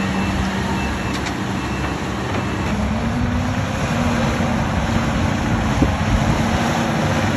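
Prinoth Panther tracked dump carriers' diesel engines running steadily, the engine note rising a little about three seconds in.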